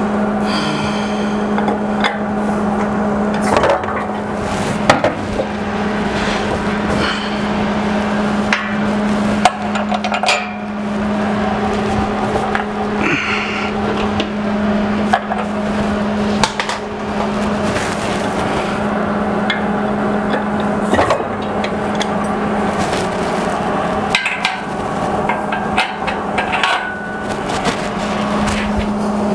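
Hand-tool work on the metal base of an air compressor: scattered clanks, knocks, clicks and scraping as the vibration isolators are fitted. A steady low hum runs underneath.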